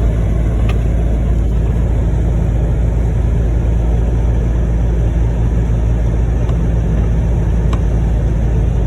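A vehicle's engine running with a steady low drone, with a few faint clicks over it.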